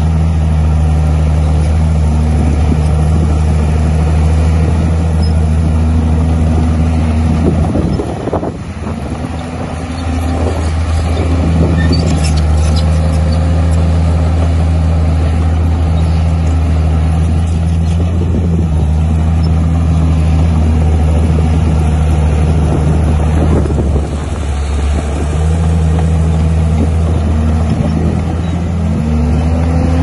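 Bulldozer diesel engine, from a Komatsu D51, running steadily under load, its speed rising and falling as it works. The level dips briefly twice, about 8 seconds in and again around 24 seconds.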